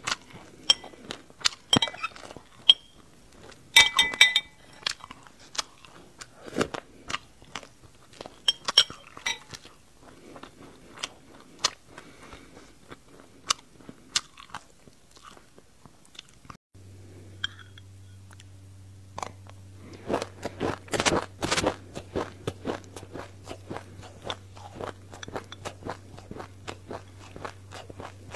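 Close-up crunching and chewing of a mouthful of sesame seeds with passion fruit pulp, as a quick irregular stream of small crisp cracks. A metal spoon rings briefly against the glass bowl about four seconds in.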